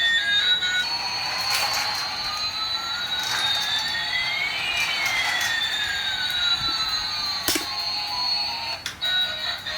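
Toy airliner's electronic jet-engine sound effect: a steady high whine with one tone sliding up and another sliding down over several seconds, crossing about halfway, then stopping about nine seconds in.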